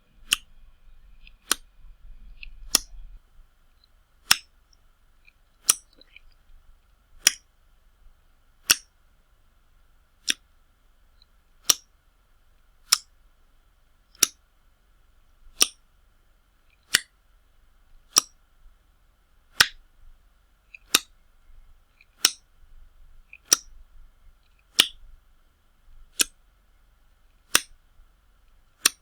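Wet slaps of a hand on skin, one sharp smack about every second and a half, some twenty in a row.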